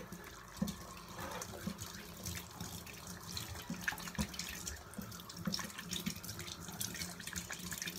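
Water running from a faucet over hands as soap is rinsed off, splashing into the sink, with small splashes throughout.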